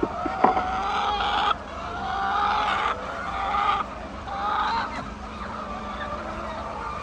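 Chickens calling: about four drawn-out calls one after another, with a sharp click about half a second in.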